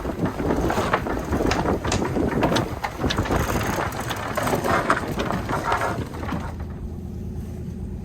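Wind buffeting the microphone aboard a sailing boat, with clicks, knocks and rattles of the boat's gear. About six and a half seconds in, this drops away to a quieter, steady low hum like an engine running.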